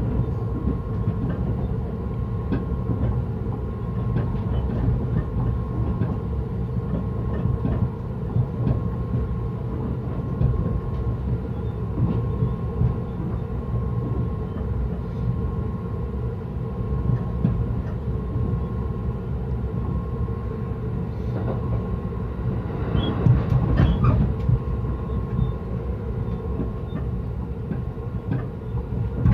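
Yokosuka Line electric commuter train running between stations, heard from inside the carriage: a steady rumble of wheels on rail with a faint steady motor hum. It grows louder, with more clatter, for a few seconds a little after twenty seconds in.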